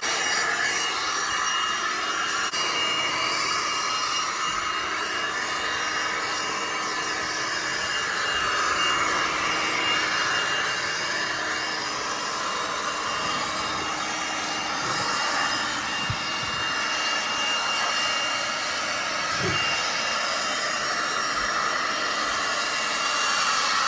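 Small cordless leaf blower running steadily: a constant high whine over rushing air as it blows water and dust off window sills and frames.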